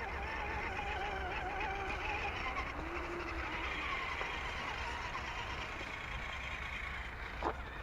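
Small electric motor and gearbox of a scale RC crawler whining, the pitch wavering up and down as the throttle changes, with one short knock near the end.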